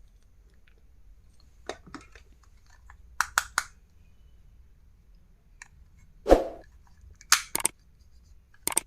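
Stationery and its packaging being handled: scattered clicks, taps and crinkles, with a louder knock about six seconds in.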